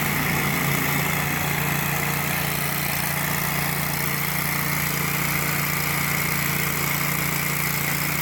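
Gas pressure washer running steadily while its wand sprays foam, a constant engine hum with an even spray hiss over it.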